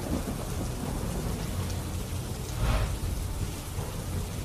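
Steady heavy rain with low thunder rumbling, and a louder swell of thunder about two and a half seconds in.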